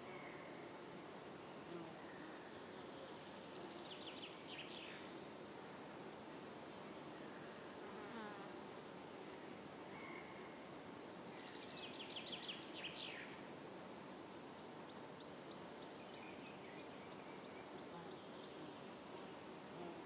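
Faint outdoor background hiss with small calls over it: long runs of quick, high ticks repeating several times a second, and two short rattling trills, about four and twelve seconds in.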